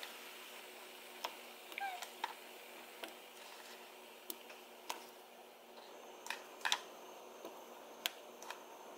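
Chunks of red potato dropped one after another into a pot of boiling water, each landing with a short sharp splash, over the faint steady bubbling of the boil.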